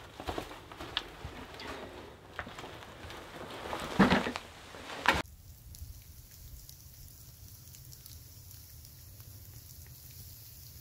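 Footsteps crunching through snow and leaves while dry sticks rattle in an armload of firewood, with a loud clatter about four seconds in as the wood comes down. Just after five seconds the sound changes abruptly to a faint, steady outdoor hiss with light ticks.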